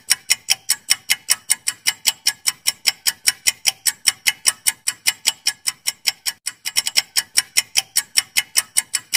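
Clock-ticking sound effect for a countdown timer: rapid, even clicks, about five a second, with a brief stumble in the rhythm about three-quarters of the way through.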